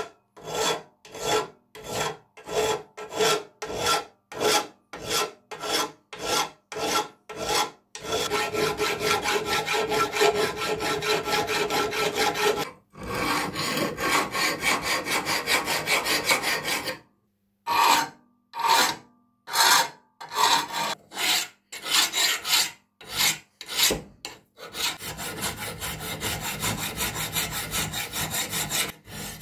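Flat hand file rasping back and forth across a steel part of an old adjustable wrench held in a vise. The strokes come separately at about two a second at first, then quicken and run together, break off briefly about two-thirds through, and pick up again.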